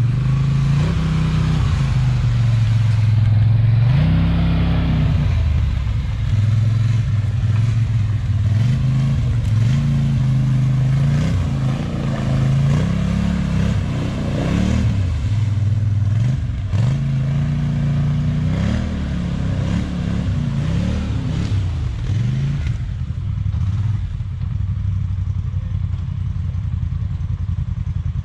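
ATV engine revving up and down again and again, then settling to a steadier, lower running near the end.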